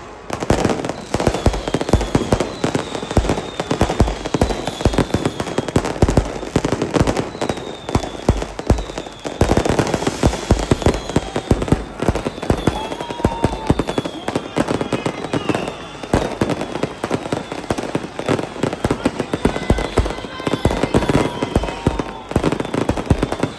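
Fireworks and firecrackers going off in a dense, near-continuous crackle of rapid bangs, dipping briefly about nine seconds in.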